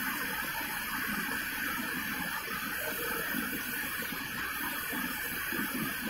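Steady background hiss with faint, indistinct low sounds: room tone, no machine running.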